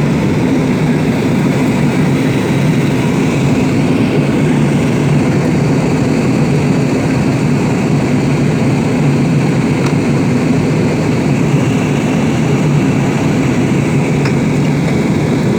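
Airliner cabin noise in flight: a steady, even roar of the engines and airflow, heard from inside the passenger cabin.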